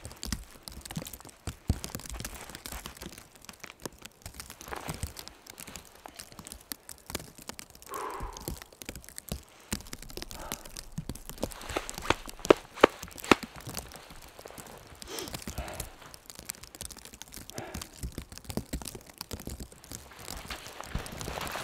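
Boots crunching and shuffling in deep snow, with rustling of clothing and gear, and a few sharp cracks about twelve to thirteen seconds in. Heavy breaths come through now and then.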